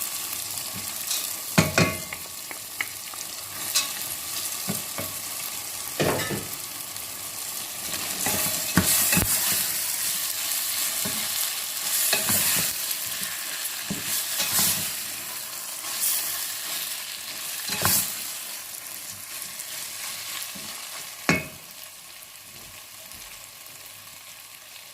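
Tomato paste and fat sizzling in a pot while a spoon stirs, knocking and scraping against the pot now and then, with toasted almonds being mixed in. The sizzle dies down near the end.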